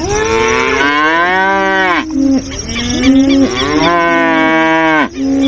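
Cow mooing: two long moos, with lower lowing between them.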